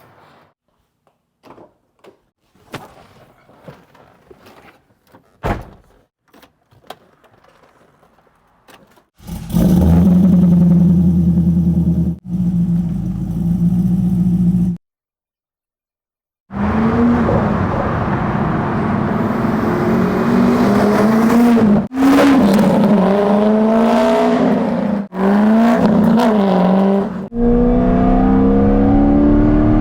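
A few faint clicks and knocks, then the 1999 C5 Corvette's LS1 V8 running loud as the car is driven hard, its pitch climbing through the revs and dropping at each gear shift, with a brief silent break partway through.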